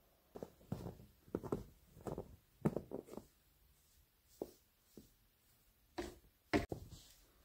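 Hand brush sweeping snow off the top of a domed clay oven in short, irregular strokes, each a brief swish or crunch, with two sharper strokes near the end.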